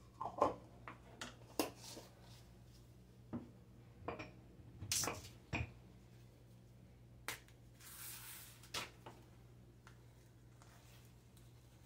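Kitchen handling sounds: scattered clicks and knocks as a measuring spoon of peanut butter is set down on a wooden cutting board and the lid goes back on the peanut butter jar, then a banana being peeled, a short rustling tear about eight seconds in. A low steady hum runs underneath.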